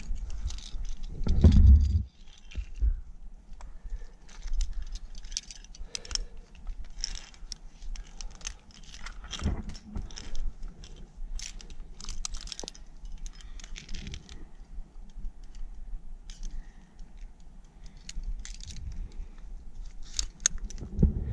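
Metal climbing hardware, carabiners and protection racked on a harness, clinking and jangling in scattered clicks, with scuffing and a louder thump about a second and a half in, over a low steady rumble.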